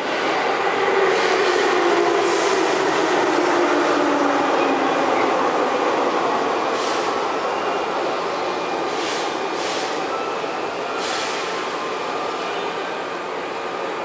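Electric commuter train noise at a station: a steady running rumble, with a tone that falls slowly over the first few seconds, and several short hisses.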